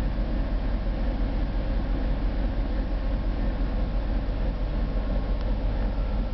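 Latvian Railways diesel locomotive standing with its engine running, a steady low rumble with no change in pitch.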